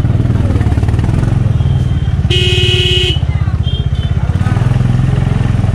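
Single-cylinder 350 cc motorcycle engine running at low speed, its exhaust pulsing steadily. Partway through, a horn sounds once for almost a second, the loudest thing heard.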